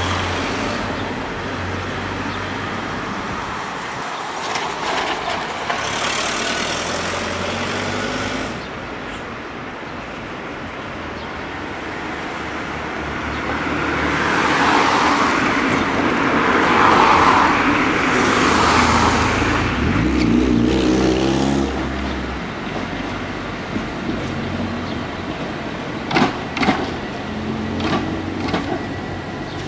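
Tram running along the track, its wheel and motor noise swelling about halfway through, with a rising electric motor whine a little later and a few sharp knocks near the end.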